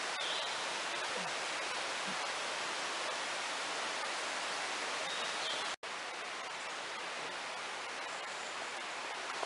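Steady rush of a mountain stream, an even hiss with little low rumble. It cuts out for an instant about six seconds in and carries on slightly softer.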